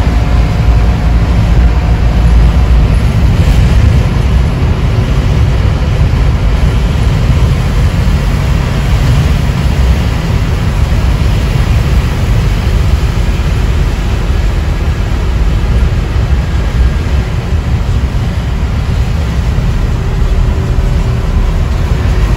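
Steady rumble and tyre hiss of a vehicle driving on wet pavement, heard from inside the cabin.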